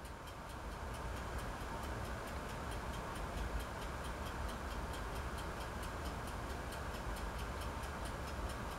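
Low, steady background hiss with a faint, rapid, regular ticking, about four or five ticks a second.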